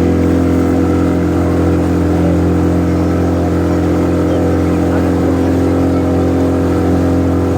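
Motorboat engine running steadily at constant speed, an even drone.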